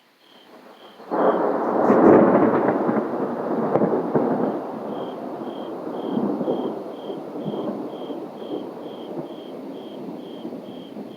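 Thunder: a sudden crack about a second in, then a long rolling rumble that slowly fades. Faint insect chirping, about three chirps a second, goes on steadily underneath.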